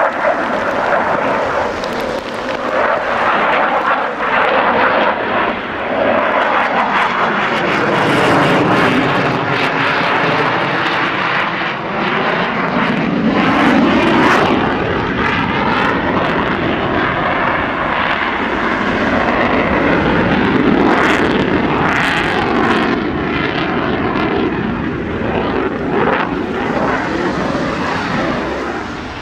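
Dassault Mirage 2000 fighter's single SNECMA M53 afterburning turbofan, loud and continuous as the jet flies its display passes. Its whooshing sound sweeps down and back up in pitch several times as the aircraft moves past.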